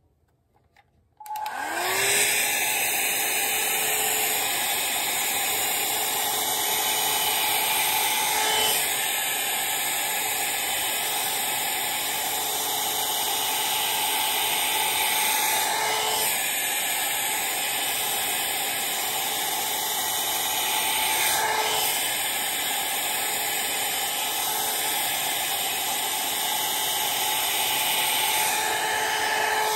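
Handheld hot-air brush (a brush-headed hair dryer) switched on about a second in: its fan motor spins up with a short rising whine, then blows steadily with an even whirring hiss.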